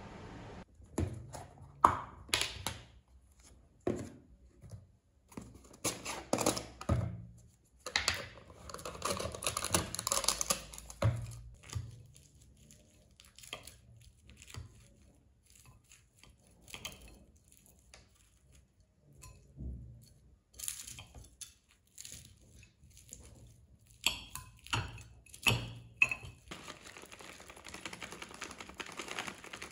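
Tabletop food handling: irregular clicks and knocks of chopsticks and utensils against a ceramic bowl, with crinkling and rustling of plastic containers and packaging and quiet gaps in between.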